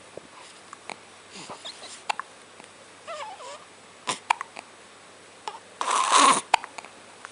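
Repeated hiccups: short, sharp hics at irregular intervals. A brief wavering vocal sound comes about three seconds in, and a louder breathy burst about six seconds in.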